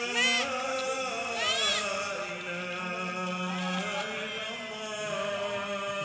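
Voices chanting an Islamic prayer together in long, held notes.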